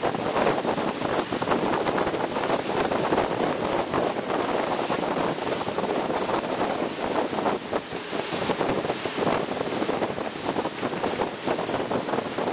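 Wind buffeting the microphone of a motorboat under way, over a steady rush and splash of water along the hull.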